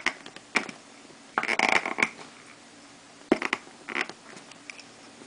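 A hand-held ink stamp pressed and set down on paper: a few short taps and knocks, with a longer scuffing sound about a second and a half in.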